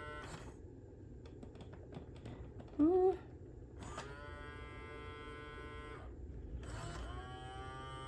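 Mattel D-Rex robot dinosaur toy's small electric motors whirring in stretches as it moves, the whir starting up again near the end. About three seconds in comes one short, loud growl-like call that rises in pitch.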